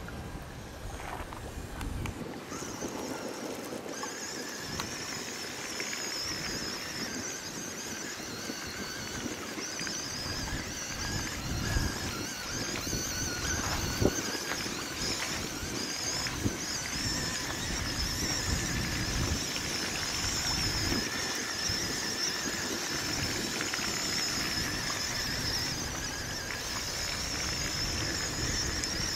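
Amphibious RC stunt car driving on water. Its small electric motors give a high, wavering whine from about two seconds in, over the splashing of its paddle-tread wheels churning the water and wind on the microphone.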